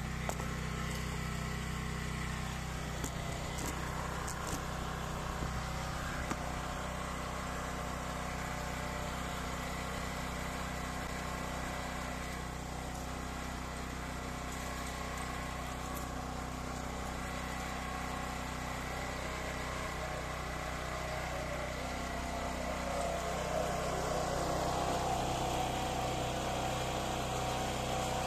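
Pressure washer running steadily with a low engine-like hum under the hiss of the water jet. The hiss gets a little louder about two-thirds of the way through.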